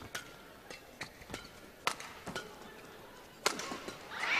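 Badminton rally: a string of sharp racket strikes on the shuttlecock, irregularly spaced, about half a dozen in all, with the players' quick footsteps on the court. The loudest strikes come just before two seconds in and about three and a half seconds in, and crowd noise starts to rise right at the end.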